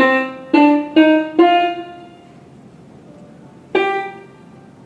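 Single notes played on a Roland XPS-10 keyboard, each fading away: four in quick succession rising in pitch, then after a pause one more. The keys are being tested after a jammed B-flat key was cleaned, and they sound again.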